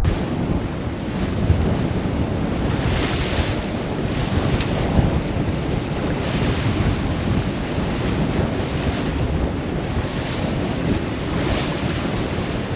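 Wind buffeting the microphone over water rushing and splashing along the hull of a sailing yacht under way in a fresh breeze of about 20 knots, with a few louder hissing washes of spray.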